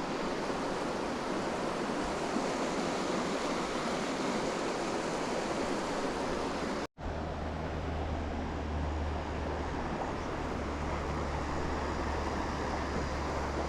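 Steady rush of flowing river water. It cuts out for an instant about seven seconds in, and after that a low steady rumble lies under the rush.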